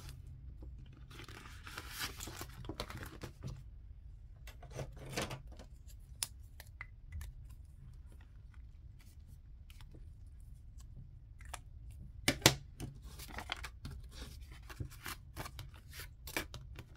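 Clear plastic binder pouches and paper dollar bills being handled, crinkling and rustling, with scattered small clicks and taps and short marker strokes on a paper tracker. One sharper click comes about three-quarters of the way through.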